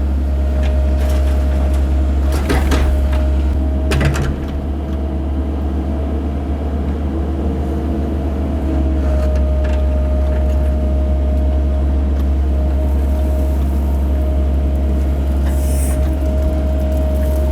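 Cat 308 mini excavator's diesel engine running steadily while digging, with a steady hydraulic whine over it and a couple of short knocks, about two and a half and four seconds in.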